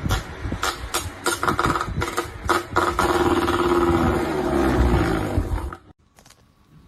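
An animal's long, drawn-out growling call that drifts slightly down in pitch and cuts off suddenly near the end, after a run of sharp knocks.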